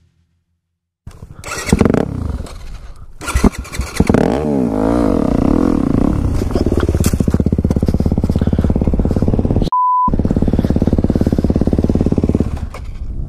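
Yamaha four-stroke dirt bike engine, starting about a second in, revving up with rising and falling pitch as it pulls away and then running steadily at speed. A short electronic censor beep cuts in about ten seconds in. Near the end the engine sound drops away as the bike goes down in the dirt.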